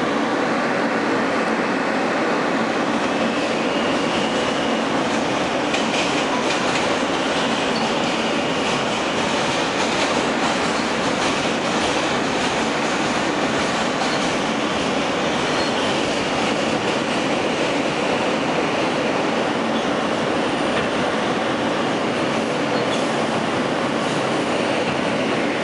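Inside an R160A-1 subway car running on elevated track: a steady rumble and clatter of wheels on rail, with a faint high whine a few seconds in.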